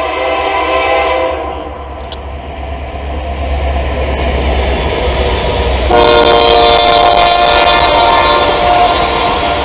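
Locomotive air horn, a Nathan K3LA on the lead ex-Union Pacific SD90MAC, blowing a chord for the crossing and cutting off about a second and a half in. Diesel locomotives then pass with a deep rumble, and about six seconds in a louder chord of steady tones comes in over the rolling tank cars.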